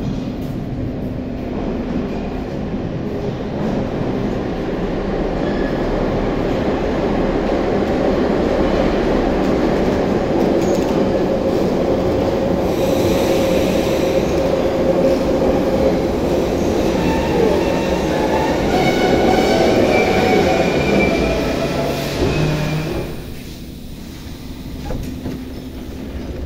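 Soviet-built 81-717/714 metro train pulling into the station. The running noise of wheels and motors grows louder as the cars come alongside the platform. From about 17 s several high, steady tones sound as the train slows. The noise drops off sharply at about 23 s as the train comes to a stop.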